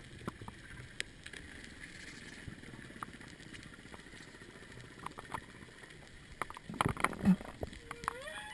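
Humpback whale song heard underwater over a steady hiss with scattered clicks: a short low call about seven seconds in, then a rising whoop near the end.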